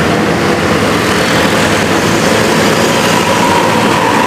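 Mercedes-Benz tour bus driving past close by with its diesel engine running, over steady road traffic. A steady whine comes in near the end.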